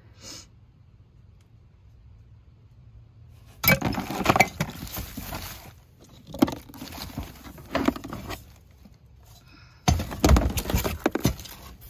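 Hands rummaging through a cauldron full of Halloween decorations: plastic bags crinkling and small items clattering together, in several bursts starting about four seconds in.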